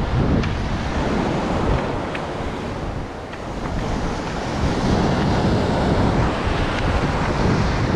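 Ocean surf washing among shoreline rocks, with heavy wind rumble on the microphone and a few faint clicks.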